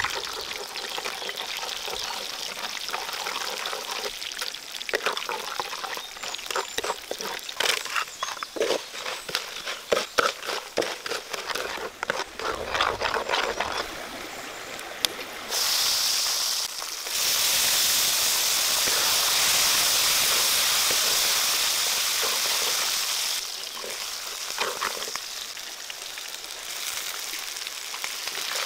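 Hot oil sizzling in a wok while a wooden spatula stirs and scrapes the frying spices and masala, with many short scrapes and taps against the pan. About halfway a loud, steady sizzle takes over, dipping briefly, then eases to a quieter sizzle near the end.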